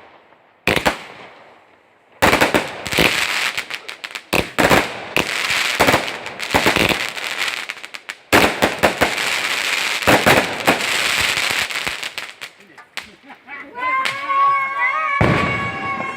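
A fireworks display: a single bang, then about ten seconds of rapid bangs and crackling that die away. Near the end, people's voices, one held as a long shout.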